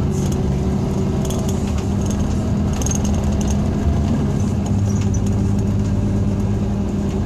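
Scania K340 coach's engine and ZF gearbox under way, heard from inside the passenger cabin: a steady drone, its tone shifting slightly about two-thirds of the way through, with light rattles over it.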